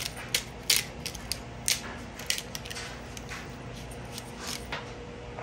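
Hand-twisted pepper grinder crunching black peppercorns: an irregular run of dry crackling clicks, several a second, that thins out and stops near the end.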